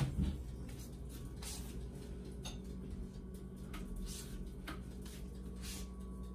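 A sharp knock right at the start, then scattered faint clicks and rustles of things being handled in a kitchen, over a steady low hum.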